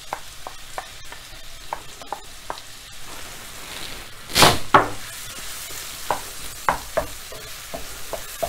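Chopped red onion sizzling in hot oil and butter in a non-stick pan, with light taps and scrapes of a wooden spatula stirring it. Two louder knocks come about halfway through.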